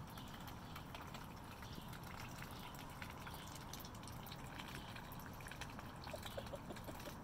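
Ducks dabbling in wet mud: their bills sifting and slurping, making rapid wet clicks and smacks.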